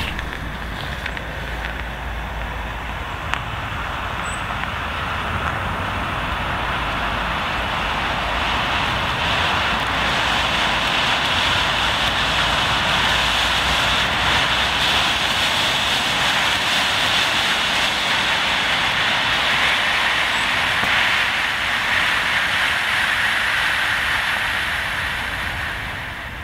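Ultras Burst wire-pull smoke grenade burning, giving off a steady hissing rush as it vents smoke. The hiss builds over the first several seconds, holds, then fades near the end as the output drops.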